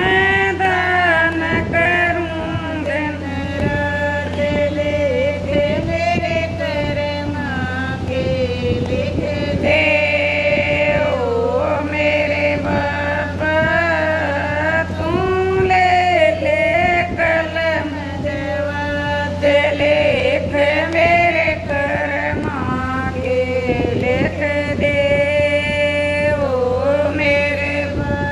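A woman singing a devotional bhajan unaccompanied, long held notes that waver and slide in pitch, over a steady low hum.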